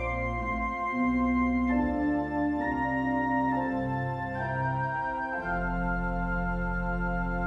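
Organ playing slow, held chords that change every second or so, with a deep bass note coming in about five and a half seconds in.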